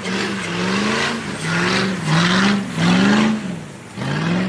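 Car engine revving hard in about four quick rising surges, with tyres spinning and hissing on snow at each surge as the car is drifted.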